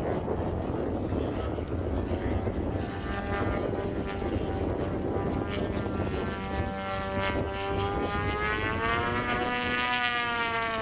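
Propeller-driven Extra 300 aerobatic model aircraft flying overhead, powered by a DA-170 twin-cylinder two-stroke petrol engine. The engine note comes out of a rushing noise over the first couple of seconds, then rises in pitch over the last few seconds.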